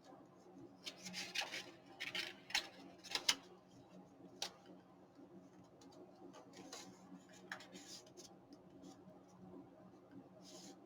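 Paper and card being handled on a craft table: short bursts of rustling and sliding with a few light clicks and taps, over a faint steady hum.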